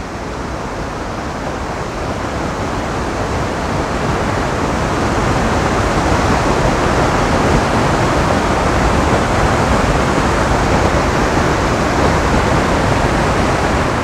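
Waterfall plunging into a rocky pool, a steady rushing of falling water that grows louder over the first few seconds and then holds level.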